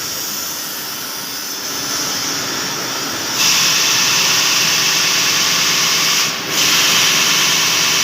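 Sanding machine running while it sands sheets: a loud, steady hissing machine noise that gets louder about three and a half seconds in, with a short dip about six seconds in.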